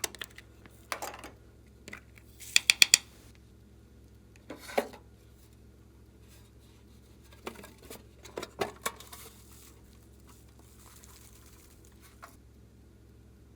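Hands working slime and small items: a quick run of sharp clicks early on, then a few soft, spaced-out squishy handling sounds.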